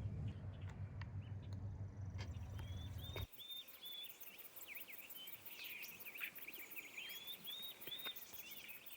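Songbirds singing in repeated short chirping phrases over a fast, high, insect-like ticking. For about the first third a steady low rumble sits underneath, then it cuts off abruptly.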